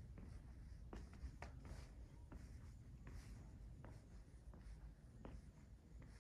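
Faint footsteps, soft taps about once or twice a second, with light rustling over a low steady room hum.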